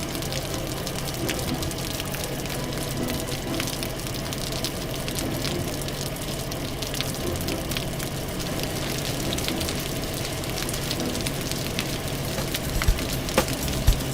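Cartoon sound effect of a fire hose spraying water onto a fire: a steady rushing hiss with fine crackling running through it, and a few short thumps near the end.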